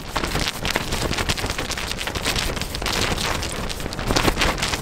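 Rain pattering steadily: a dense, irregular patter of many small ticks.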